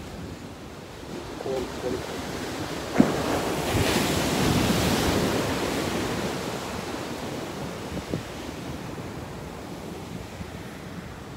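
Ocean surf washing and breaking on the beach, mixed with wind buffeting the microphone; the rush swells to its loudest about four seconds in and then eases. A single sharp tap comes about three seconds in.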